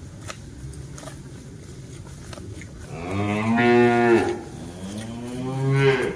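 Cow mooing: two long moos back to back, starting about three seconds in.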